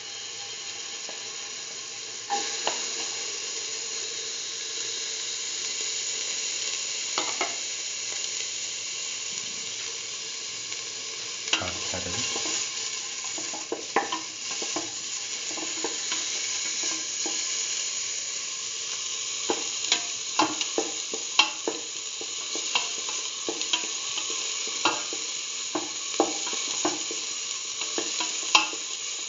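Chopped shallots sizzling in hot oil in a stainless steel pan, a steady hiss that grows louder about two seconds in. A utensil clicks and scrapes against the pan as they are stirred, more often in the second half.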